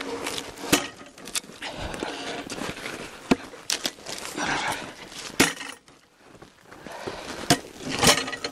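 Footsteps crunching in snow and the rustle of people handling gear, broken by several sharp knocks and clicks.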